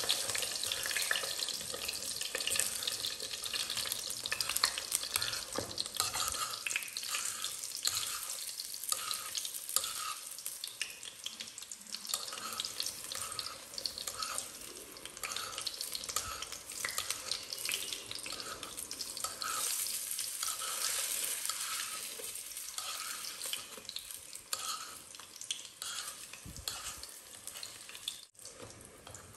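Batter-coated naan frying in hot ghee in a karahi: steady sizzling and crackling that slowly grows quieter, with a spoon stirring in the ghee.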